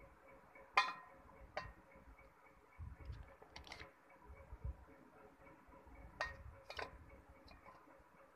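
A handful of sharp clicks and light knocks, the loudest about a second in with a short metallic ring, as a slate pencil bar is laid into an aluminium bowl of water and handled against the bowl, with a few soft thumps between them.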